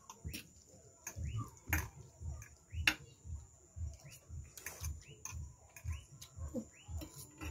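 Mouth sounds of two people eating noodles close to the microphone: wet chewing and lip smacks, short squeaky noodle slurps and clicks of forks. Under it runs a low thumping beat about twice a second.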